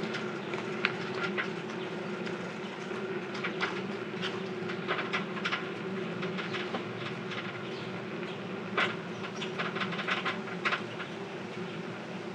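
A rented bicycle rattling and clicking while being ridden: irregular sharp clicks and rattles, in clusters, over a steady hum. The uploader herself calls the bike a bit noisy.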